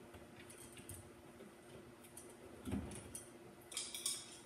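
Small clicks and ticks of hand work at a wall electrical box, with a soft knock a little under three seconds in and a brief rattle of clicks near the end.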